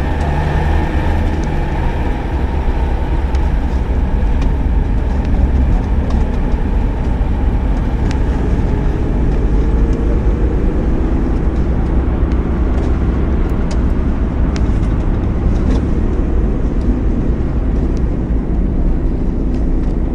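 Motor vehicle running with a steady low rumble and road noise, with scattered faint clicks over it.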